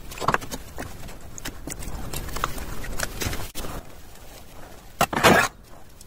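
A metal trowel stirring and scraping through wet cement mortar in a plastic bowl: irregular scrapes and soft knocks, with a louder clatter about five seconds in.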